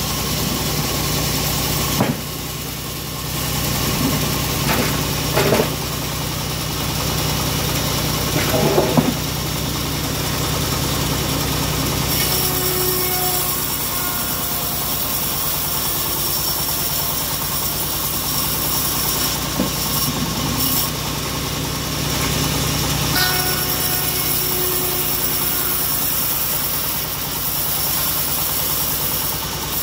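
Homemade band-saw mill running steadily off its stationary engine, the blade sawing lengthwise through a mahogany log. A few sharp knocks come from the log being handled, about 2, 5 and 9 seconds in.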